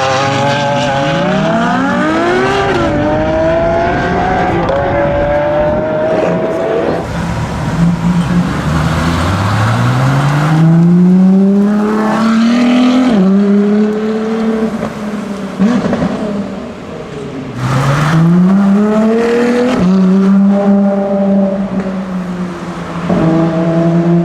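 V12 supercar engine accelerating hard, its pitch climbing through several gears with a sudden drop at each upshift, then holding a steady note for a few seconds near the end.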